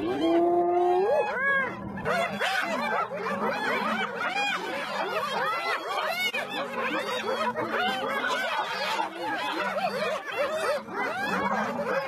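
A group of spotted hyenas calling at a carcass. A long drawn call in the first second or two, then a dense chorus of many short overlapping calls that rise and fall in pitch, the giggling typical of hyenas squabbling at a kill.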